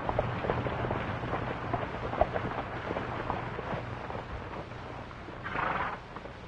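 Horses galloping on a dirt street: a ragged run of hoofbeats with dust-muffled thuds, over the steady low hum of an old film soundtrack.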